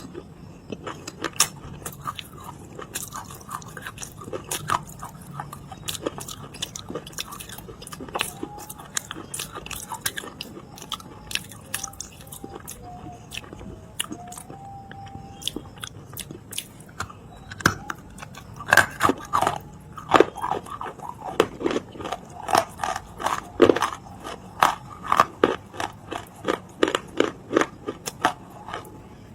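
Close-miked biting and chewing of clay, a run of sharp crunches that come faster and louder from about two-thirds of the way through.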